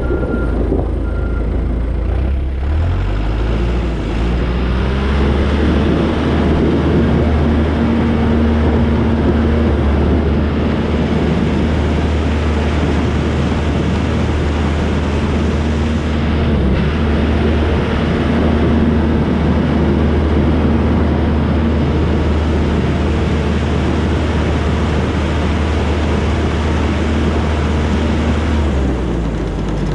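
Diesel engine of a Cat track skid steer running steadily at high revs. It revs up about two or three seconds in and eases back down near the end. A reversing alarm beeps a few times at the start.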